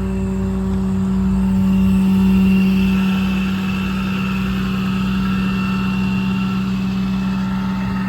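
Ram 5500 service truck with its 6.7 Cummins diesel running: a steady drone that swells a little about two seconds in.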